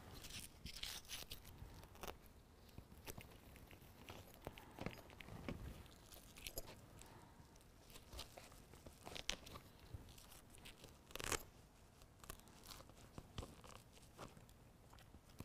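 Faint peeling and crinkling of the paper backing coming off small adhesive hook-fastener strips, with scattered light ticks and rustles as the strips are pressed onto the liner's fabric backing.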